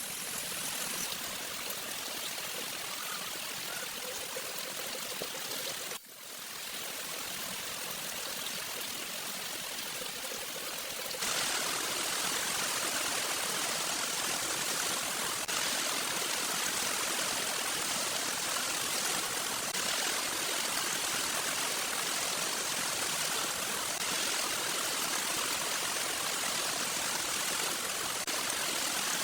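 Heavy rain pouring down steadily, a continuous rushing hiss. It dips out briefly about six seconds in, then comes back louder and brighter from about eleven seconds on.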